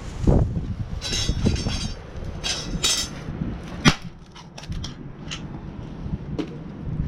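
Stainless steel fire pit parts being handled: irregular metal clanks and knocks, several of them ringing briefly. One sharp strike comes about four seconds in, followed by lighter clicks.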